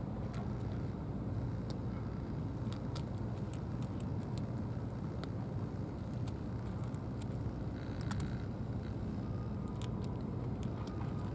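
A cat crunching dry kibble, giving irregular sharp crunches several times a second, over a steady low outdoor rumble like distant road traffic.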